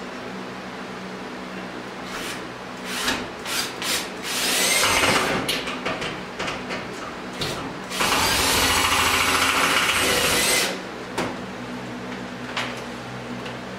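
Power drill running in a few short trigger bursts, then a run of about a second that speeds up, and a longer steady run of nearly three seconds. A steady low hum lies underneath throughout.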